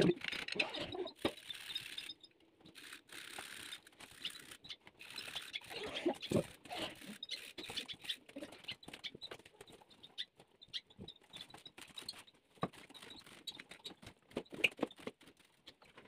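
Carrot being rubbed on a small hand grater, with short, irregular scraping strokes.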